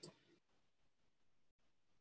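Near silence: faint room tone of a video call, with a brief dropout about one and a half seconds in.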